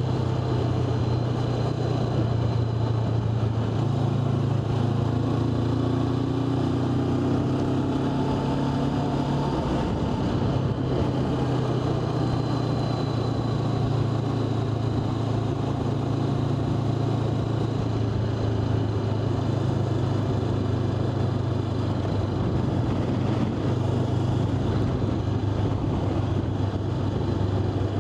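A road vehicle running at a steady cruising speed, with its engine droning evenly along with road noise.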